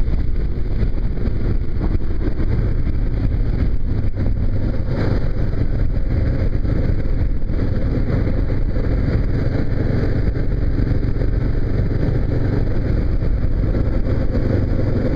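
Kawasaki KLR single-cylinder dual-sport motorcycle engine running steadily at road speed, with a constant rush of wind and road noise.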